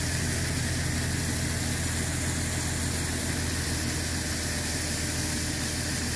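Peterbilt triaxle dump truck's diesel engine running steadily while marble-sized limestone gravel pours off its raised bed through the tailgate in a continuous hissing rush.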